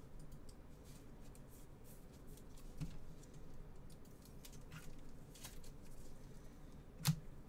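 Faint handling of trading cards and a clear plastic card sleeve by gloved hands: soft rustles and light ticks, with one sharper click near the end.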